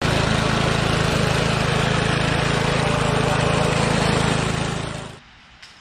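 Small single-cylinder engine of a Toro Sportlawn 25 lawn machine running steadily, then fading away near the end.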